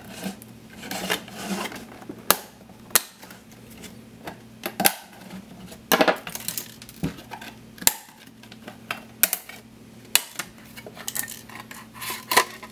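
Plastic snap clips of a Western Digital My Book external hard-drive enclosure clicking and cracking as the glossy outer shell is pried off its vented frame with a knife and by hand. The sharp clicks come irregularly, a dozen or so, with the loudest cracks about two, six, eight and twelve seconds in.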